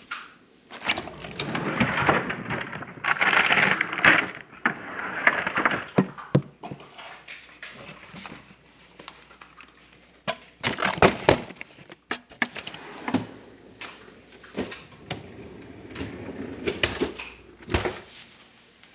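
Handling of cookie dough packaging: irregular rustling of plastic wrapping with scattered clicks and knocks, busiest in the first few seconds and again about ten seconds in.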